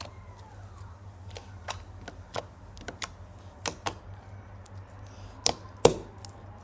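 Glossy slime being squeezed and stretched by hand, giving off irregular sharp clicks and pops, the two loudest close together near the end. A low steady hum runs underneath.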